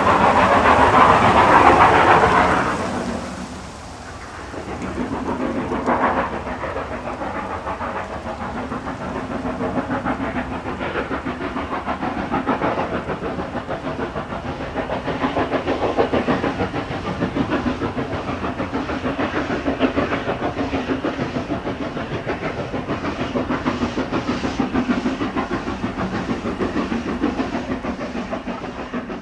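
A steam locomotive hauling a train of coaches, its exhaust chuffing in a steady, even rhythm. In the first couple of seconds a loud rush of steam noise stands out over the beats.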